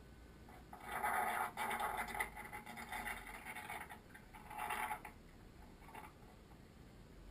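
Furnished room fire burning: a crackling, rushing noise that swells about a second in and runs for about three seconds, then comes back briefly about five seconds in.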